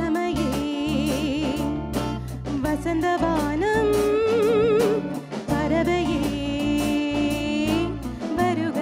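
Live band playing a Tamil film song: a woman singing long notes with a strong vibrato over a drum kit, bass and guitar, with steady drum and cymbal strokes keeping the beat.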